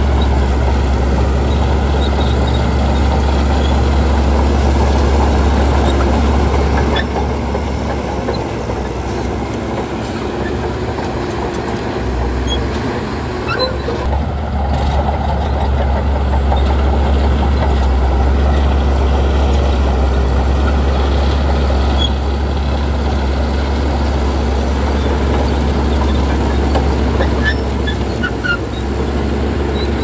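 Heavy diesel earthmoving machinery running steadily under load, with a deep low engine drone. The engine eases off about a quarter of the way in and builds back up around the middle.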